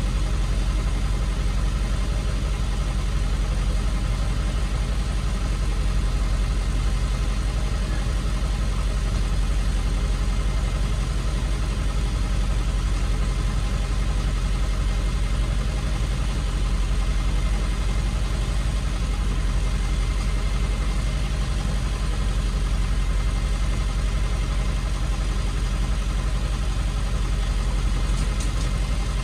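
Tow truck engine idling steadily, a deep even rumble with no revving.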